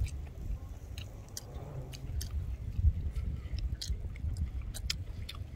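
Close-up chewing of food, with many short sharp clicks scattered through it over a low rumble.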